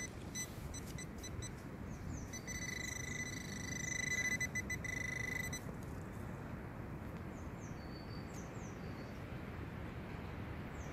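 A metal detecting pinpointer sounds a steady high alert tone for about three seconds, starting about two seconds in, signalling metal in the soil being searched. Birds chirp in short falling calls throughout.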